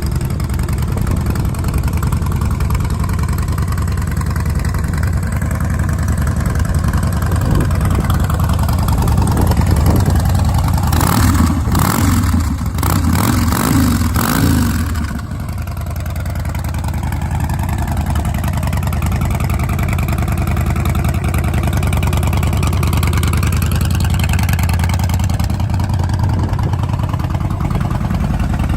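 2010 Harley-Davidson Dyna Street Bob's Twin Cam 96 V-twin running through Vance & Hines Big Radius exhaust pipes. It idles with a steady rumble, is blipped several times in quick succession about halfway through, then settles back to idle.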